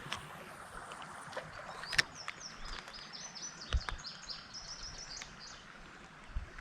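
A songbird singing a rapid run of short, high notes for about three seconds, starting about two seconds in, over faint outdoor background noise. A few sharp clicks sound along the way.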